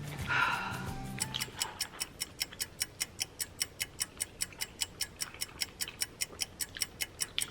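Fast, even ticking like a clock or timer sound effect, about five ticks a second, starting about a second in as the background music stops.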